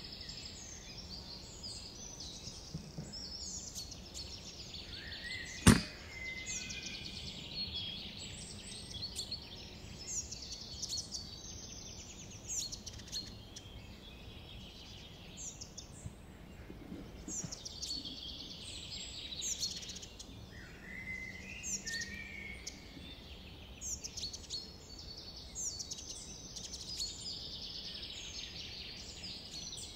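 One sharp shot from a Brocock Bantam Sniper HR .177 air rifle about six seconds in, over small birds chirping and singing throughout.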